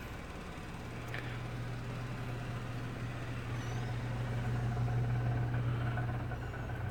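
A steady low mechanical hum, growing slightly louder over the last few seconds.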